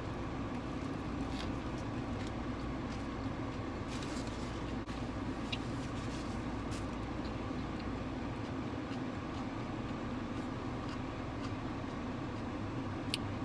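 Steady vehicle hum heard from inside a car, with a few faint clicks.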